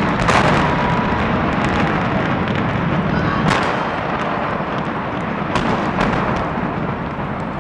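Large stadium being demolished by explosive implosion: a continuous heavy rumble of the structure collapsing, broken by sharp cracks of charges and breaking members, the loudest about half a second in and again about three and a half seconds in.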